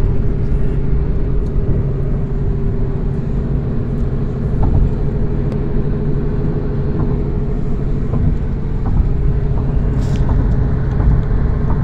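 A car's road noise heard from inside the cabin while driving: a steady low rumble of tyres and engine, with a steady hum over it.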